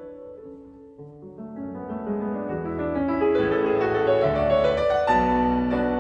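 Background piano music: quiet for the first second, then building as more notes come in.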